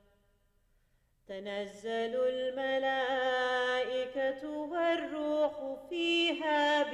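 Silence for about the first second, then a solo voice chanting in long held notes that bend and waver in pitch, in the manner of Islamic religious chant.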